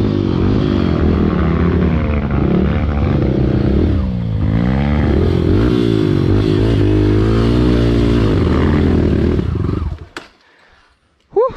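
Kawasaki KLX140G dirt bike's single-cylinder four-stroke engine, revved up and down over and over as it works up a steep, muddy trail. The engine sound falls away about ten seconds in.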